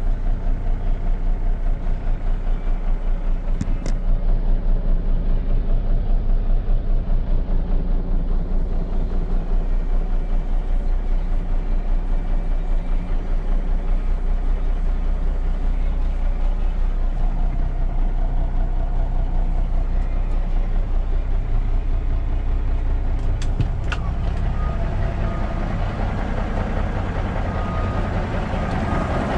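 The 1996 Freightliner FLD120 semi tractor's diesel engine idles steadily with a regular low throb, heard from inside the cab. A few faint clicks come through near the end.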